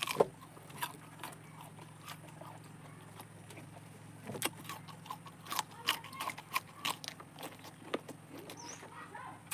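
Close-up eating of ripe tamarind pods: a sharp crack as the brittle shell is bitten at the start, then scattered clicks and crackles of shell being broken and peeled and of the sour pulp being chewed, thickest in the second half. A steady low hum lies underneath.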